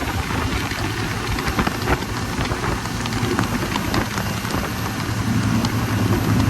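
A motor humming steadily under a loud even hiss, with scattered small ticks.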